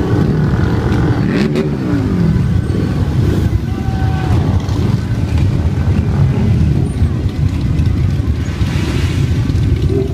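Engines of a long procession of motorcycles, mostly cruisers, rumbling past in a continuous dense drone. About a second and a half in, one engine's pitch falls as it goes by.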